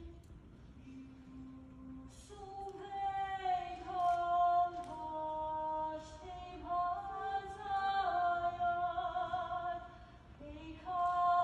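Women's choir singing slow, sustained chords, the voices entering about two seconds in after a faint low held note. The sound thins briefly around ten seconds before the full choir swells back in.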